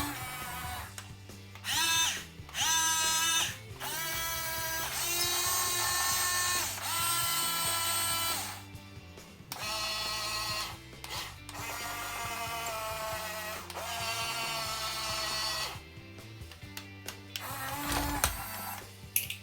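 Electric gear motors of a Huina 1550 RC excavator whining in a series of short runs, each one to two seconds long and rising in pitch as it starts, over background music.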